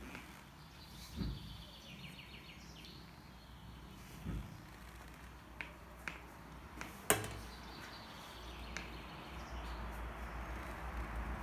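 Scattered light clicks and taps of kittens' claws and a plastic toy ball on a metal floor drain grate, with a few soft knocks and one sharper click about seven seconds in. A brief high chirping trill sounds about a second in.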